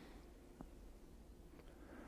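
Near silence, with a faint steady hum and two faint ticks about a second apart.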